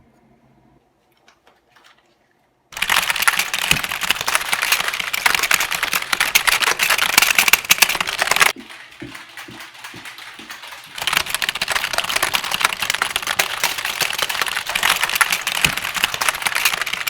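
Mechanical keyboard typed on very fast and hard, a loud, dense clatter of key clicks. It starts about three seconds in, drops to a few softer taps and knocks around the middle, then resumes just as loud.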